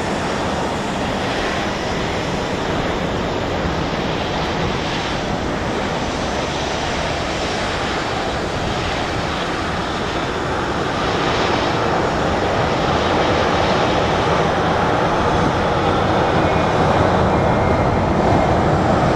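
Airbus A321-231's IAE V2500 turbofan engines running as the airliner rolls down the runway after touchdown: a steady jet rush that grows a little louder about halfway through.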